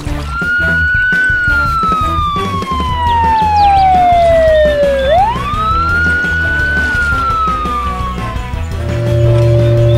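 Police siren sound effect: one wailing tone that slides slowly down in pitch for about five seconds, sweeps quickly back up, then slides down again and fades out near the end, over background music.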